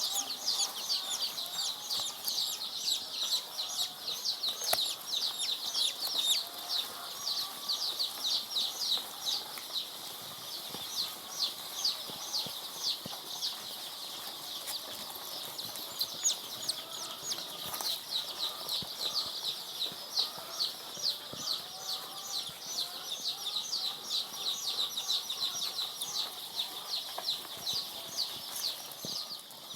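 A large flock of three-day-old layer chicks peeping together: a continuous chorus of many high, short, down-sliding cheeps overlapping one another.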